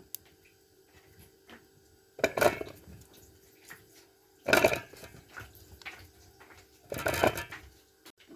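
Electric food chopper pulsed in three short bursts about two seconds apart, crushing fresh grapes into pulp.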